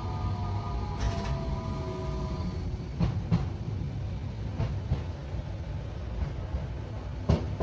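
Tokyu Setagaya Line 300 series tram running, heard inside the car: its traction motor whine falls in pitch and fades out in the first two seconds or so, leaving a steady low running rumble. Over the rumble come a few sharp clicks from the wheels crossing rail joints.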